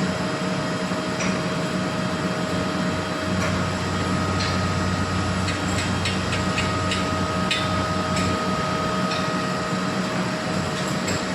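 Stick (arc) welding on a steel pipe: a steady sizzling crackle over a low hum, with scattered sharp pops.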